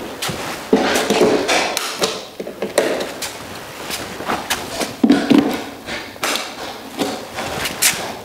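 Irregular sharp clicks and knocks as a plug-in GFCI tester is pushed into kitchen countertop receptacles and the ground-fault receptacles trip, with handling rustle between them.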